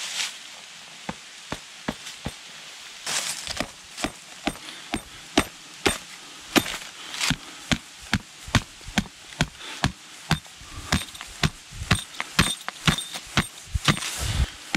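Mallet driving tent pins into the ground: repeated sharp strikes, a few at first, then about two a second from about four seconds in.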